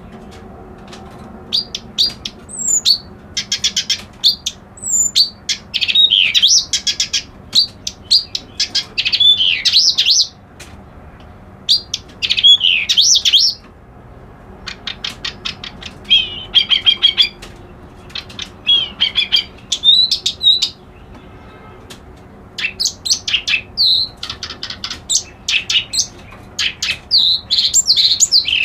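Kerak basi alis putih (white-browed reed-warbler type songbird) singing: burst after burst of fast chattering rattles mixed with sweeping whistled notes, each phrase lasting one to two seconds with short pauses between.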